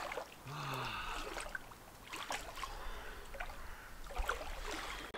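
A person wading through lake water, with light splashing and sloshing from the legs and a few sharp water splashes. A brief low, falling vocal groan comes about half a second in.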